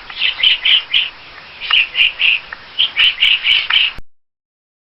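Woodpecker calling: short, sharp high notes in quick runs of four or five, stopping abruptly near the end.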